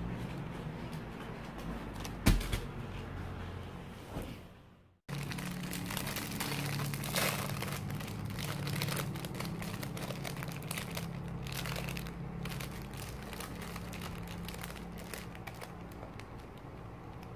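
Clear plastic bread bag crinkling as it is handled, opened and a slice pulled out, over a steady low hum. There is one sharp knock about two seconds in, and the sound cuts out for a moment before five seconds.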